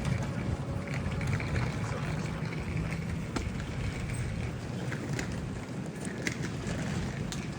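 Steady low rumble of a diesel train at the station platform, with scattered sharp ticks.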